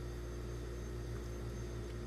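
Electric hair clippers running with a steady hum.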